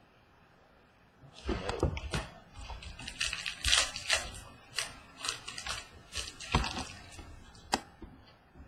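Baseball cards and their packaging being handled, with irregular rustling, crinkling and sharp little clicks starting about a second in.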